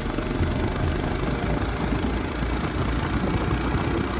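Motorcycle engine running steadily as the bike rides along, heard from the rider's seat as a dense low rumble.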